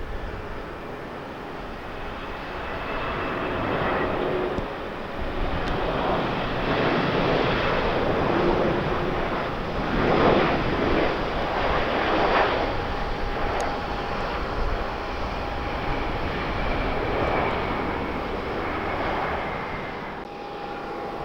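Airliner engines passing, a rushing roar with a faint steady whine that swells to its loudest about halfway through and then eases off. Wind buffets the microphone underneath.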